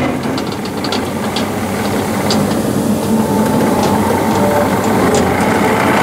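Diesel engine of a 2008 Takeuchi TL120 compact track loader running steadily as the machine drives on gravel, with scattered light clicks over it.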